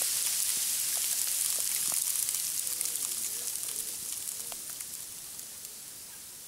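Sand and debris from the exploded Tannerite barrel falling back onto leaves and ground: a steady hiss with scattered faint ticks that fades away over the last few seconds.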